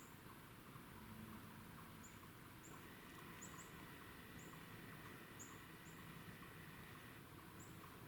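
Near-silent woodland quiet with about ten faint, very high, short chips from a small bird, spaced irregularly. A faint steady high tone runs between about three and seven seconds in.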